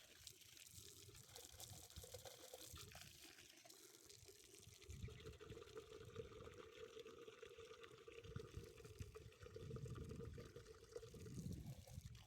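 Faint wind buffeting on the microphone, a low rumble that swells and fades in gusts, with a faint steady hum underneath.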